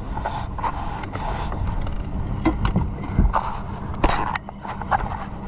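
Handling noise on a boat deck: irregular rustles, scrapes and knocks as clothing brushes against the camera and the landing net is moved, with a sharper knock about three and four seconds in. A steady low hum runs underneath.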